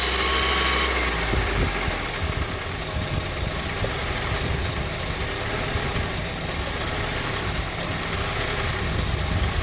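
2002 Honda CR-V's 2.4-litre four-cylinder engine idling, with a loud hiss of air being sucked in that cuts off abruptly about a second in; the engine then runs on with the rough, unsteady idle being diagnosed.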